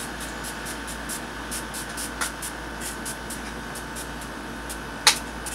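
Pump bottle of Urban Decay makeup setting spray spritzing in quick short puffs of hissing mist, about three a second, with one sharper click about five seconds in.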